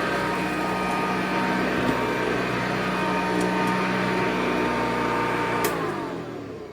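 Sanitaire SC684 commercial upright vacuum cleaner running steadily, then switched off with a click near the end, its motor whine winding down in pitch.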